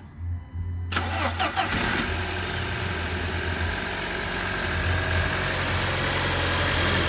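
2007 Audi A4's four-cylinder turbo engine starting on a newly fitted starter: a brief crank, then it catches about a second in with a short rise in revs and settles into a steady idle.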